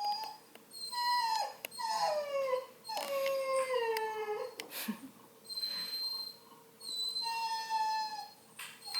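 Redbone Coonhound puppy whining in a series of long, drawn-out cries, several of them sliding down in pitch, with short pauses between.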